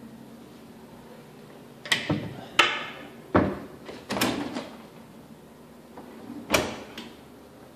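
Kitchen cabinet and dishwasher doors being shut and opened: a run of sharp knocks and clatters, four in quick succession starting about two seconds in and a fifth a couple of seconds later.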